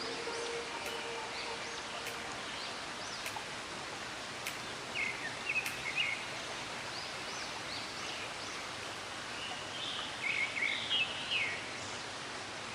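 Birds chirping in two short bouts of quick rising calls, over a steady outdoor background rush.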